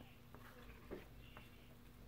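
Faint rubbing of a plastic pan scraper spreading glue over cereal-box cardboard, with a light knock about a second in.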